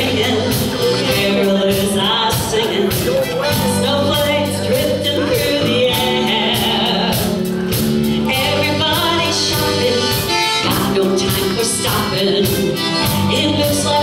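Live country band playing a song with a steady drum beat, keyboard and accordion, with a singer on vocals.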